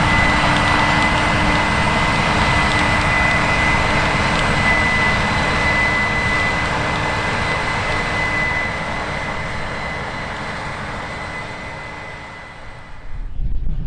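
Heavy farm machinery running steadily with a constant high-pitched whine over the engine and mechanical noise, fading gradually as it moves away. Near the end the sound drops off abruptly into a quieter, lower rumble.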